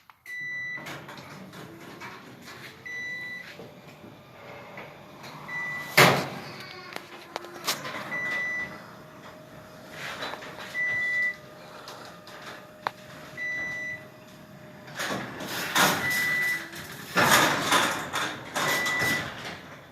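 Garage door opener running on battery backup power as it closes the door, its backup unit giving a short high beep about every two and a half seconds. Under the beeps the opener runs with a steady hum, and the door clatters loudly at times, most of all near the end.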